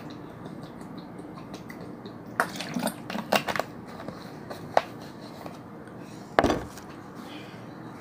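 Plastic water bottle crinkling and clicking as it is handled and its screw cap is put back on, with a heavier knock about six seconds in.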